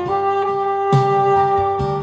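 Alto saxophone holding one long, steady note in a slow Korean ballad melody over accompaniment. Accompaniment chords strike about a second in and again near the end.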